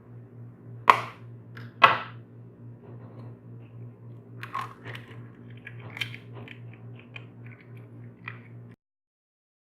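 An egg knocked twice against the rim of a mixing bowl, sharp cracks about a second apart, then smaller clicks and crackles as the shell is broken open over the flour. A steady low hum runs underneath, and the sound cuts off shortly before the end.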